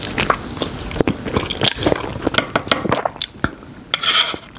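Close mouth sounds of someone eating Chapagetti instant black bean noodles: noodles slurped in and chewed, with many short wet smacks and clicks. A brief louder rush of air comes about four seconds in.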